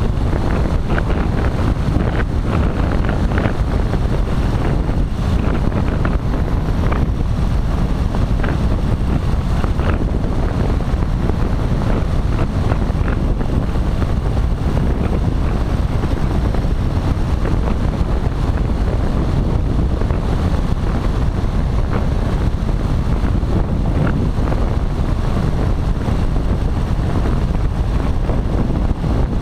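Steady wind buffeting the microphone of a camera on a powered paraglider in flight, mixed with the drone of the paramotor's engine.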